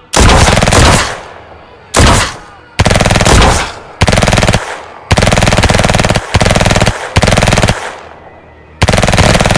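Gunfire sound effect: about eight bursts of rapid shots, each half a second to a second long, with short gaps between them, as a volley of guns opens fire.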